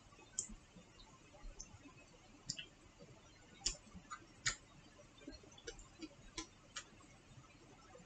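Faint eating sounds: a teaspoon scooping a halved kiwi, with mouth smacks while chewing. It is heard as about a dozen short, sharp clicks at uneven intervals.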